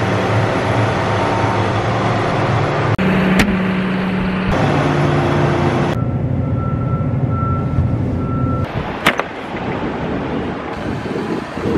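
John Deere tractor's diesel engine running, heard in several short clips one after another. A couple of sharp clicks and, midway, a steady pulsing beep for a few seconds.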